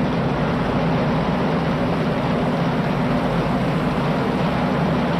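A loud, steady rushing noise with a low hum underneath, unchanging throughout.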